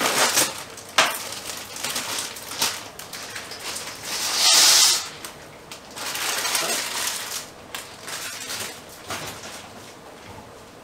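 Plastic bag of dried gnocchi pasta crinkling and rustling as it is cut open and handled, in a run of short bursts with a louder rustle about four and a half seconds in.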